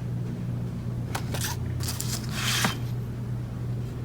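Old paper photographs being handled: short rustles and slides of paper about a second in, and a longer one just past the middle, over a steady low hum.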